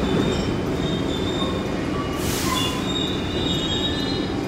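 R62 subway train starting to pull out of the station: a steady rumble with thin, high wheel squeal that grows in the second half, and a short hiss about halfway through.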